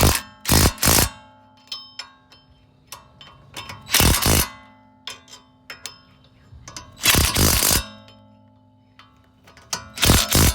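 Power driver running in several short bursts a few seconds apart, tightening the bolts of a wheel hub assembly.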